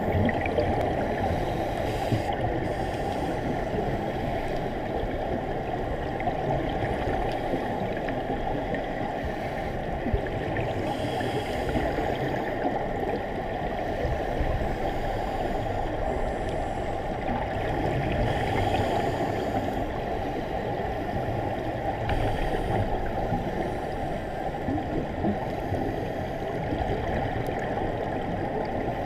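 Muffled underwater noise heard through a camera's waterproof housing: a steady low rush of scuba regulator exhaust bubbles, swelling every few seconds.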